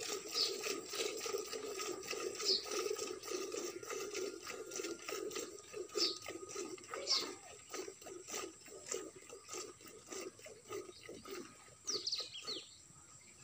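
Hand-milking a cow into a steel pot partly full of milk: fast rhythmic squirts of milk hitting the milk in the pot, thinning out over the last few seconds. A few short high chirps sound over it.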